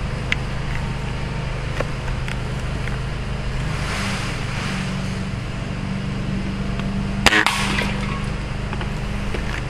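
A lawn mower engine drones steadily in the background. About seven seconds in comes a single sharp snap, the spring-powered UTG L96 airsoft rifle firing.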